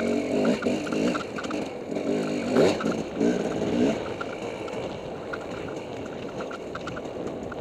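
Dirt bike engine under way, its pitch rising and falling with the throttle for the first few seconds, then running more evenly and a little quieter. A sharp knock about two and a half seconds in.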